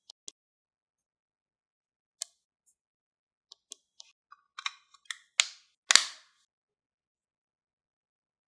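Sharp clicks and snaps from hands handling the doorbell kit and its packaging. A few clicks come scattered at first, then a quicker run starts about halfway through, with two louder snaps near the end.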